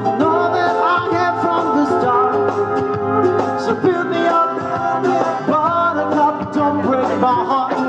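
Background music: a song with a sung vocal line over a steady instrumental backing.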